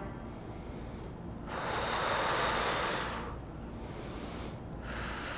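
A woman breathing audibly through the nose while holding a yoga pose: one long breath of nearly two seconds, then a shorter, quieter one near the end.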